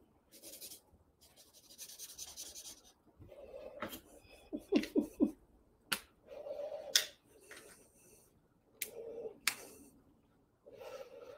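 Felt-tip markers on a paper flip-chart pad: a short stretch of scribbling strokes, and several sharp clicks as marker caps are pulled off and snapped back on.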